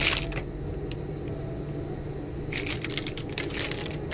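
Plastic wrapper and tray of a packaged burger crinkling as it is handled, in two short bursts: one at the start and one about two and a half seconds in. A steady low hum runs underneath.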